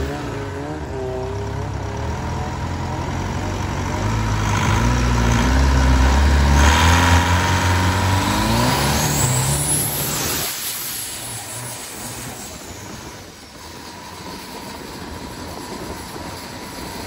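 Twin-turbocharged car engine of a longtail racing boat revving up hard as the boat accelerates, its pitch climbing and loudest about halfway through, with a high rising whistle. About ten seconds in the low engine note falls away, leaving a quieter rush.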